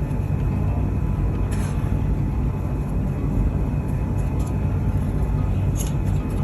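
Steady low background rumble, with a couple of faint soft taps.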